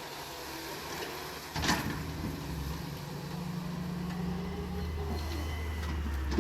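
Backhoe loader's diesel engine running, with a sharp clunk about a second and a half in, after which the engine drone gets louder; more knocks come right at the end.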